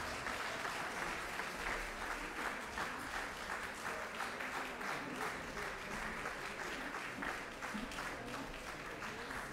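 Audience applauding steadily, slowly dying down toward the end.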